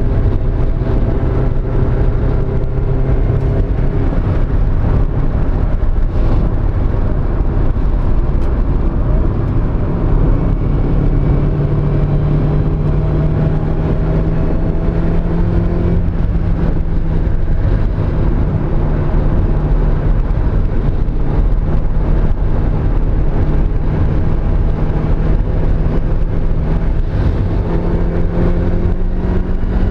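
Mazda Miata's inline-four engine running under load at speed, its note climbing slowly and steadily over a long stretch, with a heavy low rumble beneath. The engine has a misfire on cylinder 2.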